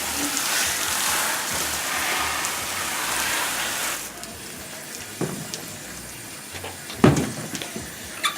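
Water spraying from a hose onto a plastic dirt-bike fender, a steady hiss that cuts off sharply about four seconds in. Then come two knocks, the second one louder.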